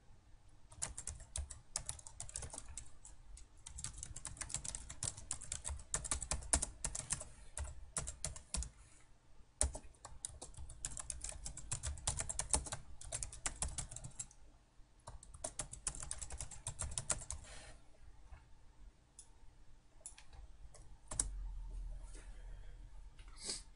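Typing on a laptop keyboard in quick runs of key clicks, entering a long command line. After about 17 seconds it thins to a few scattered key or mouse clicks, with a dull thump a little after 21 seconds.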